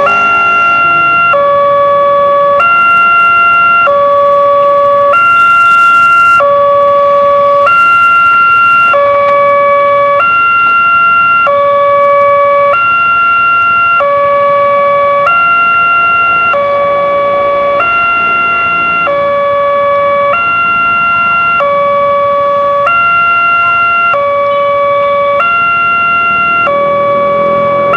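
Railway level-crossing warning alarm sounding, an electronic two-tone signal that alternates between a lower and a higher tone about every second and a quarter. It warns that a train is approaching and the barrier is about to close.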